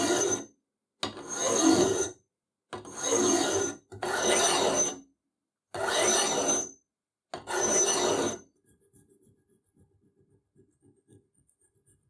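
Hand file rasping across small metal parts held in a vise: a series of filing bursts about a second long with short gaps between, each carrying a thin high ring. From about two-thirds of the way in, only faint light scrapes and ticks.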